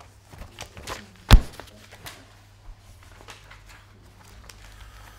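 Handling noise at a meeting table: papers rustling and scattered small clicks and knocks, with one sharp loud knock just over a second in.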